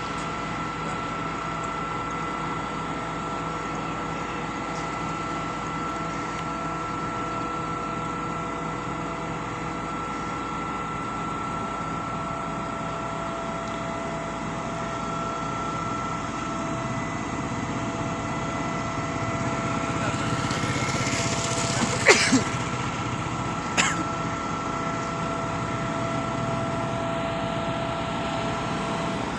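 Concrete pump machinery running steadily with a constant whine, swelling louder about two-thirds of the way through, with two sharp knocks a second or two apart near the end.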